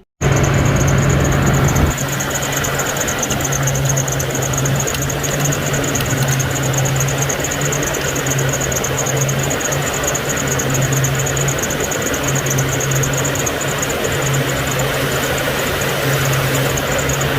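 Mitsubishi L200 Triton engine running steadily with a thin high-pitched whine over it: the noise it makes on a cold start, which the mechanic traces to the water pump and checks for bearing play.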